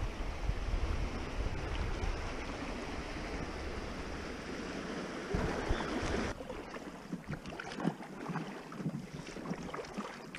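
Moving creek water washing against an inflatable packraft, with wind rumbling on the action-camera microphone. About six seconds in it cuts abruptly to quieter water with scattered small splashes from a kayak paddle dipping in.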